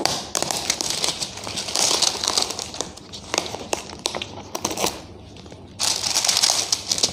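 Scissors snipping through the packing tape on a cardboard parcel, with crinkling and rustling of plastic wrap and paper as the packing slip in its plastic sleeve is pulled free. There is a louder burst of rustling near the end.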